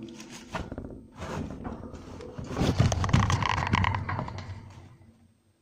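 Wood-shaving bedding being scooped out of a plastic cage base: rustling and crunching of the shavings with small clicks and scrapes of the scoop, loudest about three seconds in and fading away near the end.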